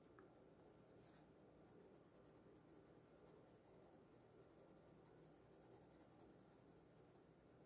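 Very faint scratching of a Derwent Graphitint watercolour-graphite pencil colouring a swatch on watercolour paper.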